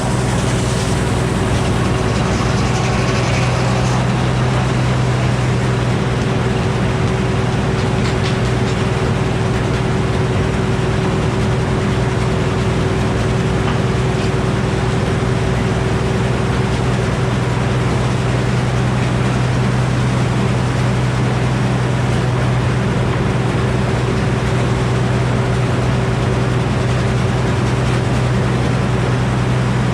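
Sawmill's engine running steadily at a constant speed, a continuous low hum with no change in load.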